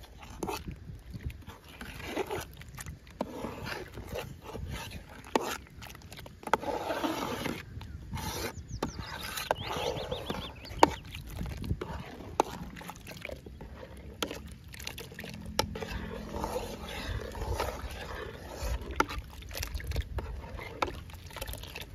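Metal ladle stirring a thick milky mixture in an aluminium pot, scraping and clinking against the sides and bottom, with repeated sharp clicks, the loudest about eleven seconds in. An animal calls at times in the background.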